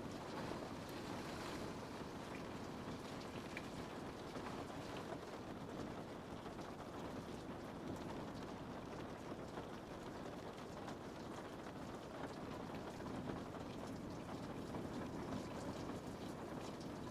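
Steady rain pattering on a window pane, an even hiss of countless small drops with no let-up.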